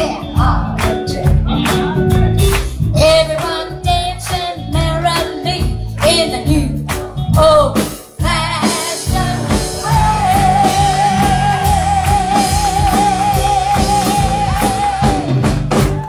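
Live rock-and-roll band with drums and electric guitar backing a woman singing. About ten seconds in, one long final note with vibrato is held over the band, and the song ends just before the close.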